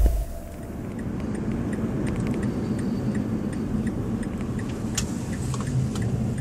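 Car driving on a city street, heard from inside the cabin: a steady low road and engine rumble, with faint regular ticking and a sharp click about five seconds in.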